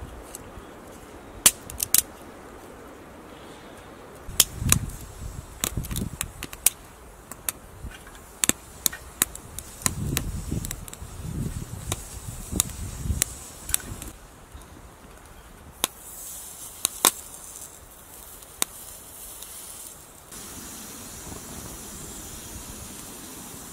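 Wood fire in a small metal twig-burning camp stove crackling and popping with sharp snaps, with soft knocks as dry kindling sticks are handled and fed in. About 20 seconds in, a steady hiss of the fire burning takes over.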